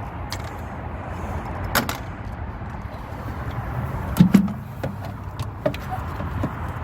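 A few scattered sharp clicks and light metallic knocks from a ratchet and 11 mm socket working the bolt that holds a car's turn-signal lamp, over a steady background hum.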